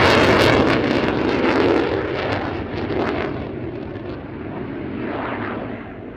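Jet noise of a Lockheed Martin F-35A Lightning II's single Pratt & Whitney F135 afterburning turbofan. It is loud and crackling at first, then fades steadily as the jet flies away.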